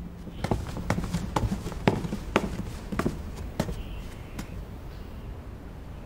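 Quick footsteps on a hard floor, about two steps a second, slowing and stopping after about four seconds.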